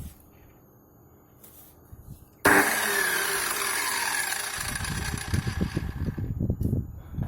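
Mini cut-off saw with a 180 mm blade switching on with a sudden loud whine about two and a half seconds in; the whine's pitch sinks as it runs and fades near the end, giving way to a low rumble.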